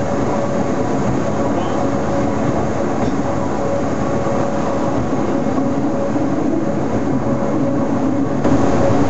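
Electric rack railcar of the Pilatus cogwheel railway running uphill, heard from inside the car: a steady rumble and hum of motors and cog drive with a steady whine. It gets a little louder near the end.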